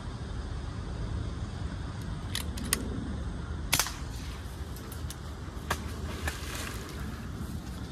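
Brocock BRK Ghost air rifle firing with a single sharp crack a little past the middle. A few lighter clicks come before and after it, over a low steady background rumble.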